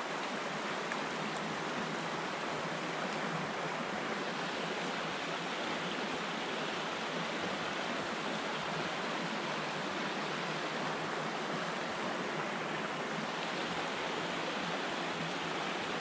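Small rocky brook rushing steadily over riffles and little cascades.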